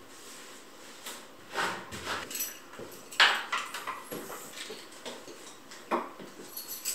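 Front door being handled: metal clinks and clacks of keys, lock and handle, with rustling between them and one sharp clack about three seconds in.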